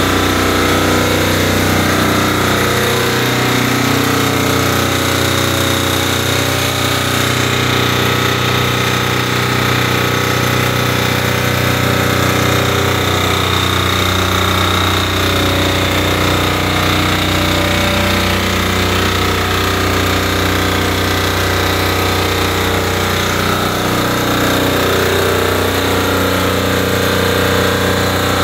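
Engine of an IGNIX 16 portable fire-extinguishing and decontamination unit running steadily at a constant speed.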